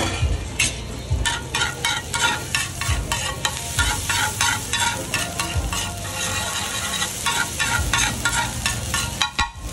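Metal spatula scraping and clattering on a large flat griddle in quick, irregular strokes while the egg mixture sizzles and fries.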